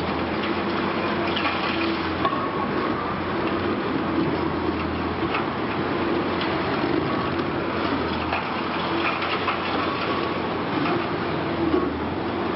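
Liebherr R 960 high-reach demolition excavator at work: its diesel engine and hydraulics run steadily with an on-and-off hum, mixed with a dense rushing noise and scattered cracks and clatter of building material being broken and falling.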